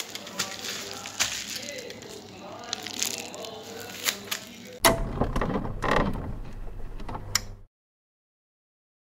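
Small cardboard retail box and packaging handled by hand: scattered clicks, taps and rustles. About five seconds in comes a louder, fuller stretch of sound that cuts off suddenly to dead silence.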